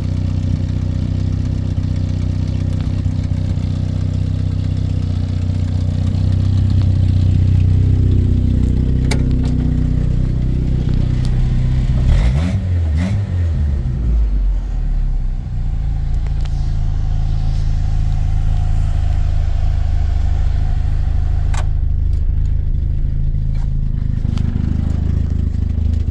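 1979 Toyota SR5's engine running with an exhaust leak. It runs steadily, swells a little, then rises and falls in pitch a couple of times about halfway through before settling back to a steady idle, with a few sharp clicks along the way.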